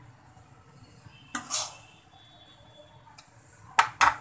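A metal spoon and a pan gripper clanking against a wok as cooked potatoes and chickpeas are scooped out into a serving dish. There is a scraping clatter about a second and a half in, then a few sharp clinks near the end.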